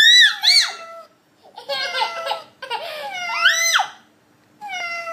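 A toddler's excited high-pitched squeals and shrieks, in several short bursts with brief gaps, the pitch sweeping up and down.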